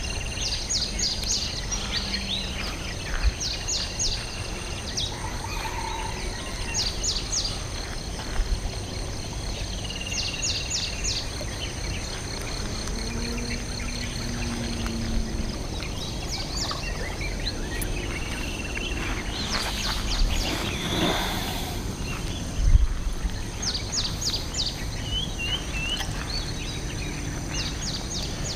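Riverside birds calling, each call a quick cluster of three or four high notes, repeated every few seconds with an occasional held whistle. Under them runs a steady high insect drone. A single dull thump comes late on.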